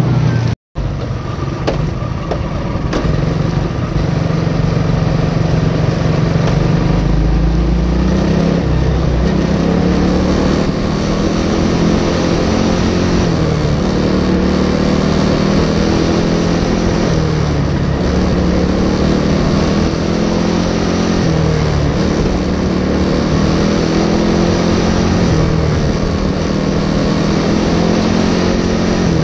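Racing kart's Briggs & Stratton Animal single-cylinder four-stroke engine at race pace, its pitch repeatedly climbing as it accelerates and dropping as it slows for corners. The sound cuts out briefly about half a second in.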